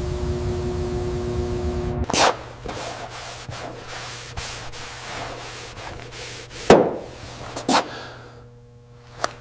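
Several short rubbing strokes, the loudest about two-thirds of the way through. They follow a steady humming noise that cuts off about two seconds in.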